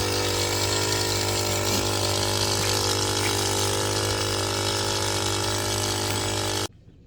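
A steady mechanical hum with a rushing, water-like hiss that cuts off abruptly near the end.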